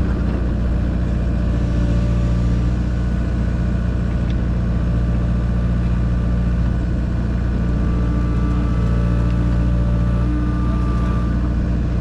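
A heavy engine running steadily at an even speed, with higher whining tones that come and go in the second half.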